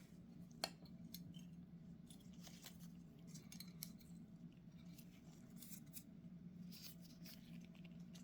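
Faint clicks, taps and light scraping of hand tools and small metal parts being handled while a Zenith 35/40 INAT carburetor is taken apart, with one sharper click under a second in, over a low steady hum.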